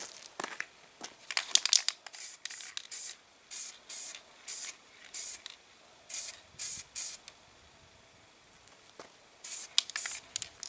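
Aerosol spray-paint can spraying primer or paint in a string of short hissing bursts, a dozen or so. A gap of about two seconds falls before the last few bursts.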